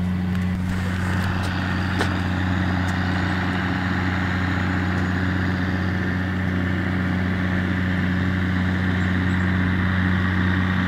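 Vehicle engine idling steadily, with a hiss over it.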